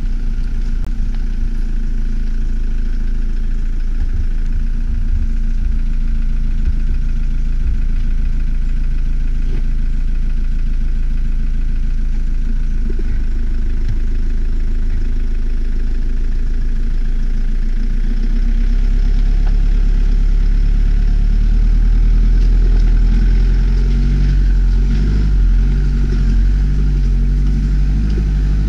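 Toyota Hilux pickup's engine running as it drives slowly along a dirt track, a steady low hum that grows louder about two-thirds of the way through.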